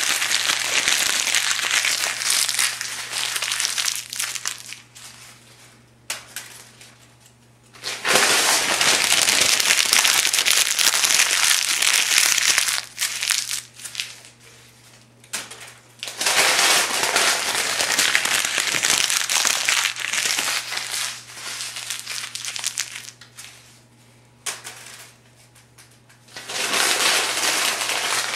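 Thin phone book pages being crumpled, a dense crackling crinkle that comes in long spells of several seconds with short quieter pauses between. A faint steady low hum runs underneath.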